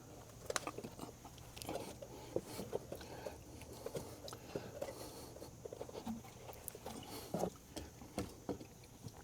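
Faint, irregular clicks and crackles of plastic wiring-harness connectors and wires being handled and pushed together.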